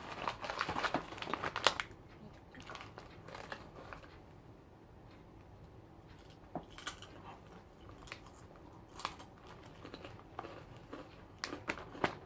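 Crinkling of a plastic snack bag being handled, dense and loudest in the first two seconds, then scattered faint crackles and clicks.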